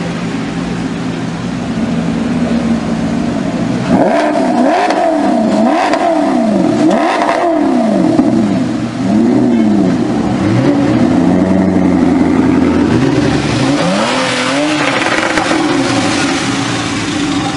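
Sports car engine idling, then revved hard in a string of quick blips from about four seconds in, the pitch rising and falling sharply several times, followed by a stretch held at higher revs and a few more blips near the end.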